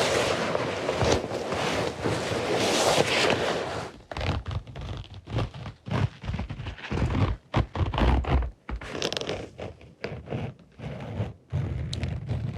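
Close-miked ASMR trigger sounds: a dense scraping rustle for about four seconds, then a run of irregular taps and deep thumps.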